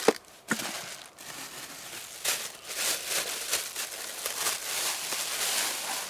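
Plastic bag crinkling and rustling as it is handled and unwrapped, with a sharp click at the start and another about half a second in.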